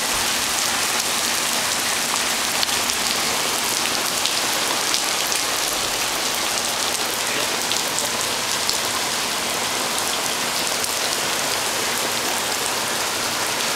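Hail and rain falling steadily: a constant hiss dotted with many small sharp ticks of hailstones striking.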